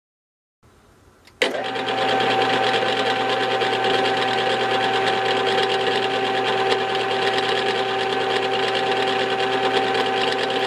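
Small HQ400 lathe-mill-drill switching on with a click about a second and a half in, then running steadily with a gear whine as it spins a motorcycle brake drum in its chuck.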